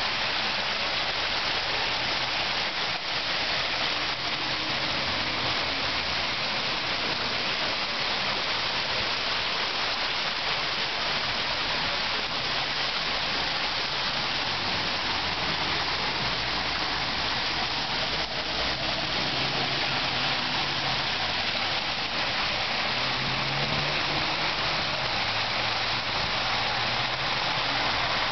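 Artificial portable waterfall running: water falling and splashing in a steady, continuous hiss.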